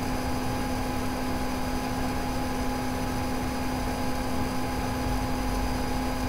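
Steady room hum and hiss with a few constant tones, even in level throughout.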